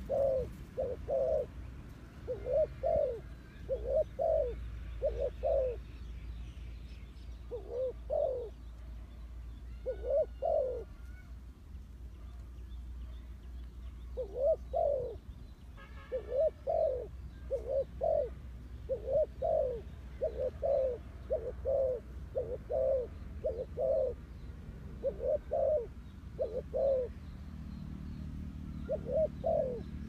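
Spotted dove cooing: low coos in quick pairs, repeated in runs with two short breaks. Faint chirps of another small bird about ten and sixteen seconds in.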